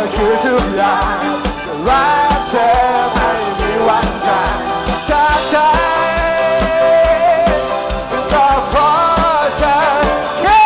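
A live rock band playing with a singer, over a steady, fast kick-drum beat.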